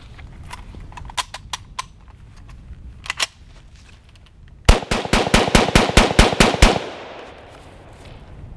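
Yugoslavian M59/66 SKS rifle being loaded from a stripper clip, a few sharp metallic clicks, then about ten shots of 7.62×39 fired in rapid succession over two seconds, roughly five a second, emptying the magazine.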